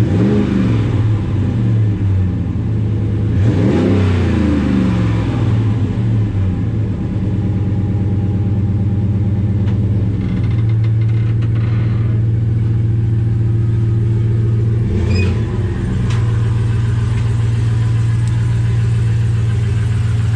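Dodge Ram half-ton's 5.7-litre Hemi V8 running through a freshly installed dual catback exhaust with behind-the-tire exits, just after start-up. It idles steadily, with a rev up and back down near the start and again about four seconds in, and a short blip of the throttle about fifteen seconds in.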